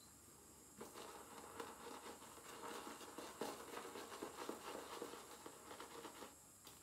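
A shaving brush with a 24 mm synthetic knot face-lathering: quick, irregular strokes of the bristles working wet soap lather over the cheek and stubble. The brushing starts about a second in and stops shortly before the end.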